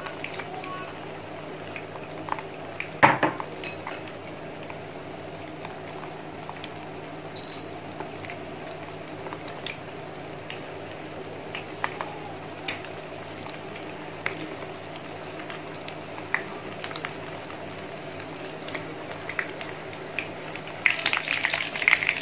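Chicken wings shallow-frying in hot oil in a pan: a steady sizzle with scattered pops over the hum of an induction cooktop. There is a sharp knock about three seconds in, and the sizzling grows louder and busier near the end.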